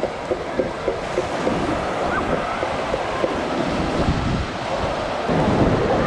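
Small North Sea waves breaking and washing up a sandy beach, with wind buffeting the microphone; a wash swells louder about five seconds in.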